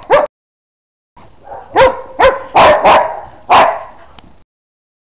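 Dogs barking in play: one bark at the start, then a quick run of about five sharp barks in the middle, with the sound cutting out abruptly between them.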